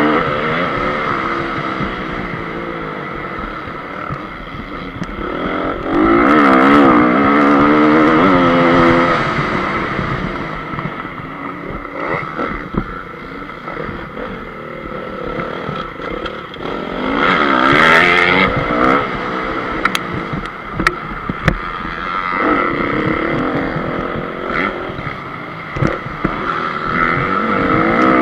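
Honda CRF250 single-cylinder four-stroke motocross bike engine, ridden hard on a dirt track: the revs climb and fall again and again as the rider opens and closes the throttle through the gears, easing off for a while in the middle. Scattered sharp ticks come in the middle stretch.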